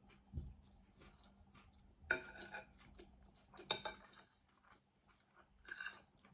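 Close-up eating of a grinder sandwich: a few short, crisp crunches and chews, loudest about two seconds and about four seconds in, with quieter mouth sounds between them.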